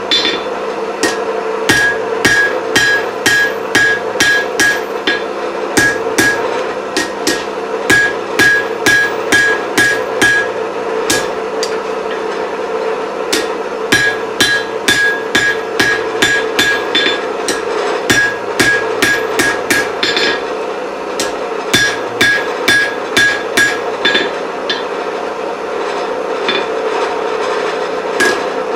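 Blacksmith's hand hammer striking hot steel on an anvil while drawing out a chisel, about two to three blows a second in runs with a few short breaks, many blows leaving a brief high ring from the anvil. A steady hum runs underneath.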